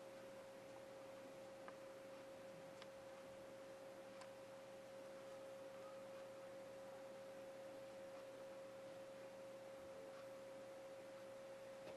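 Near silence: room tone with a faint steady high hum and a few faint clicks.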